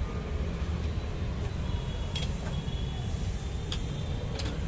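Steady low rumble of street and traffic noise, with a few sharp clicks about two, three and a half, and four and a half seconds in.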